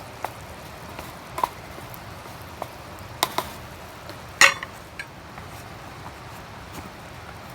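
Camp cooking over a fire: a few light clinks and knocks of a utensil against a cooking pot, with one louder clank about four and a half seconds in, over a steady low hiss.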